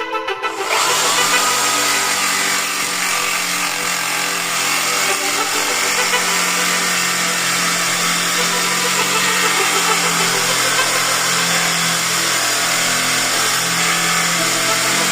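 Electric power tool running steadily against an oak slab, a continuous motor hum under a broad grinding hiss.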